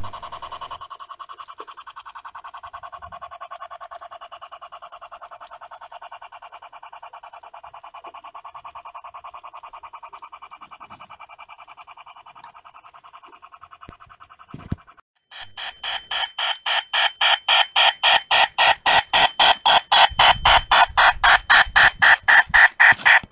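G-scale model geared steam locomotive chuffing in a rapid, even beat, faint at first, then much louder and closer from about fifteen seconds in at around five chuffs a second.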